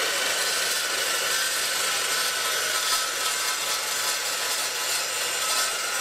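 Bosch GCD 12 JL dry-cut metal saw with a carbide-tipped blade cutting through a flat metal bar: a steady, high-pitched grinding hiss over the motor's whine.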